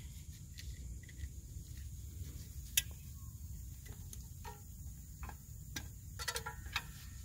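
Light metallic clicks and taps as a drum-brake shoe hold-down spring and retainer cup are pressed onto the pin with a hold-down tool. The sharpest click comes about three seconds in, with a few quick clicks together near the end.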